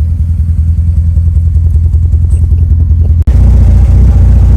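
1992 Mitsubishi Eclipse GSX's turbocharged 4G63 four-cylinder engine running steadily with an even, rapid exhaust pulse, just back to running after its fuel system was cleaned. About three seconds in it cuts abruptly to a louder take of the engine running.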